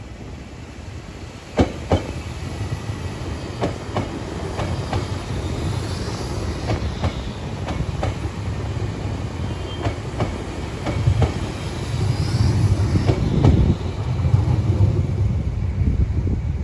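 Hanshin 5001-series electric train approaching and running past, its wheels clacking over rail joints in a row of sharp clicks. The running rumble builds, is loudest a few seconds before the end, then falls away.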